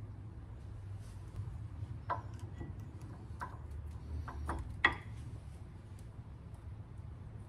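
A handful of light metallic clicks and taps as brake pads and their clips are handled at a rear brake caliper bracket; the sharpest comes a little under five seconds in. A steady low hum runs underneath.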